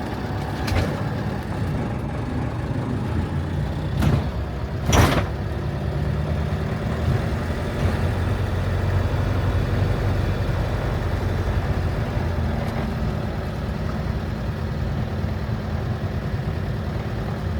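Campervan engine and road noise, a steady low rumble while driving, with two short knocks about four and five seconds in.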